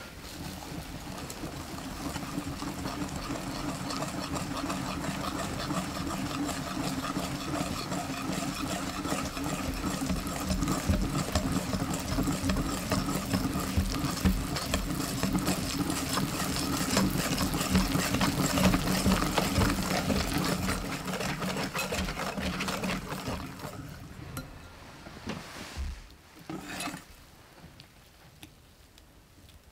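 Electric hand mixer running steadily in a bowl, then switched off about 24 seconds in, followed by a couple of light knocks.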